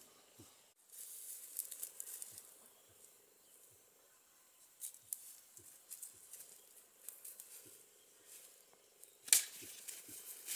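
Rustling and crackling of ferns, dry leaves and twigs as a person moves crouched through the undergrowth, with a single sharp crack about nine seconds in.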